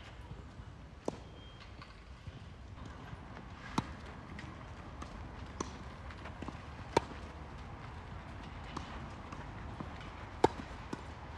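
Tennis ball struck back and forth by rackets in a rally: sharp pops a few seconds apart, the two loudest in the second half, with fainter ball bounces and footsteps between.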